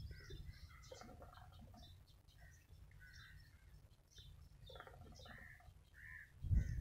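Birds calling in short, scattered chirps and caws over a low rumble, with a louder sound starting near the end.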